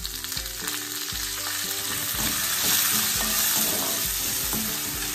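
Curry leaves and fried peanuts, chana dal and cashews sizzling in hot sesame oil in an aluminium kadai, stirred with a metal perforated spatula. The sizzle grows louder about two seconds in.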